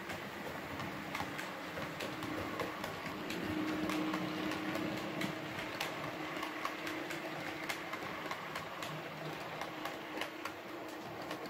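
Model railway train running past: a model diesel locomotive and its rake of vans, with a steady motor hum and many small clicks as the wheels cross rail joints and pointwork, loudest a few seconds in.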